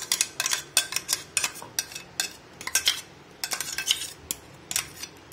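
Metal spoon scraping and clinking against a steel mixer-grinder jar, many short irregular scrapes and knocks, a few a second, as ground spinach puree is scraped out into a bowl.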